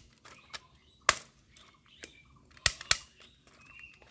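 Toy army gun giving sharp plastic clicks: one about a second in, then a quick pair of clicks about a second and a half later.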